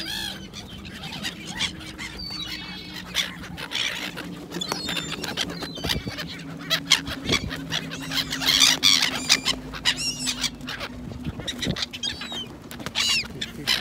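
A flock of gulls calling repeatedly, short high squealing calls, while flying close around the microphone. A steady low hum runs underneath.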